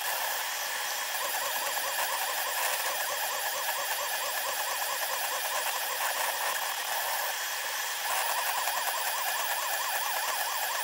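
SeeMeCNC Orion delta 3D printer's stepper motors whining as the effector moves, in audio sped up tenfold, so the whine warbles rapidly up and down in pitch over a steady hiss. The warble fades a little about a second in and comes back louder near the end.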